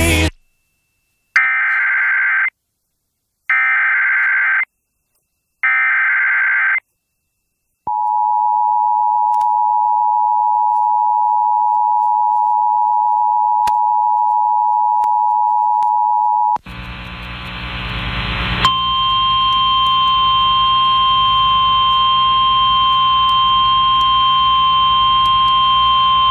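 Emergency Alert System activation tones on an FM broadcast. Three short buzzing bursts of the digital SAME header come about a second apart, and then the steady two-tone EAS attention signal sounds for about nine seconds. The attention signal gives way to a hissy relayed feed carrying a single steady tone.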